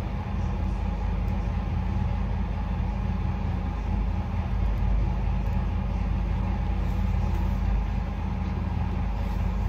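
Steady low mechanical hum, like a running engine, holding level without change.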